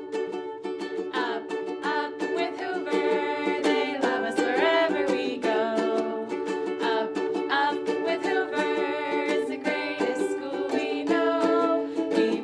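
The school song: steadily strummed chords on a plucked string instrument, with a singing voice carrying the melody from about a second in.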